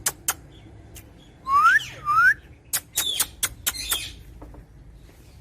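Birds calling: a run of short, sharp chirps, with two rising whistled notes about a second and a half in, then another cluster of chirps.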